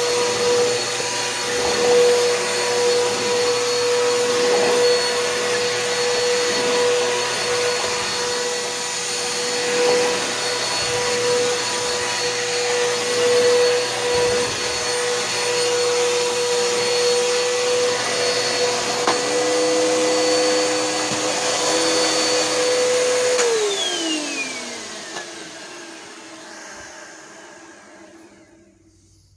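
Bissell PowerForce Helix upright vacuum cleaner running steadily with a high motor whine. Near the end it is switched off, and the motor winds down with a falling whine that fades out.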